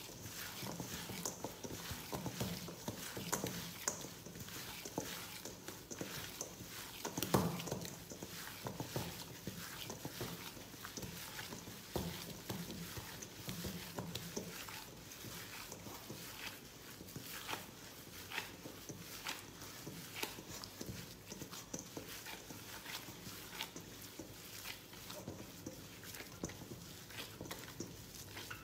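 Hands kneading and squeezing raw minced beef mixed with chopped herbs and onion in a bowl: a run of small irregular squishes and taps, with one louder thump about seven seconds in.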